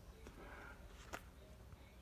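Near silence: room tone, with one faint click about a second in.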